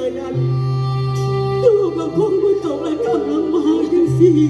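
Mor lam singing over a steady droning accompaniment: held tones alone at first, then about a second and a half in a sung line comes in with heavy wavering ornaments.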